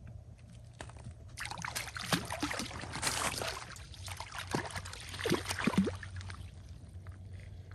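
Water splashing and sloshing in an ice-fishing hole as a hooked brook trout thrashes at the surface, lasting from about a second and a half in to about six and a half seconds, with a few sharp plops.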